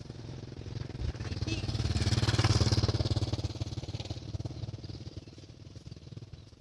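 A motorcycle engine passing by, growing louder to a peak about two and a half seconds in, then fading away.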